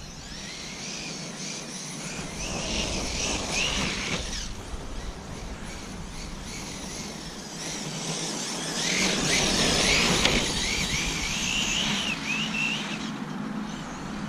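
Arrma Talion 6S RC car's brushless motor and drivetrain whining as it is driven at speed across grass, the pitch rising and falling with the throttle, in two runs: one over the first few seconds and a longer one from about 8 s until shortly before the end.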